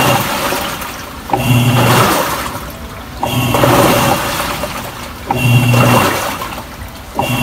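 American Home AWF 8000FZ top-load washing machine in its wash cycle: the motor hums and the pulsator churns the water in surges about every two seconds, each starting suddenly and fading away.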